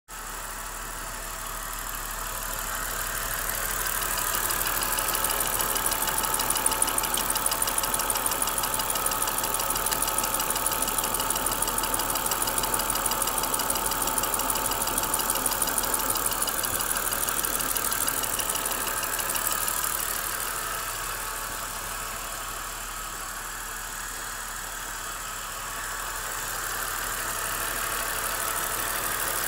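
BMW M54 straight-six petrol engine running with a fast, even ticking knock, which the owner places at the sixth cylinder. The sound grows louder a few seconds in, drops back for a while past the middle, and rises again near the end.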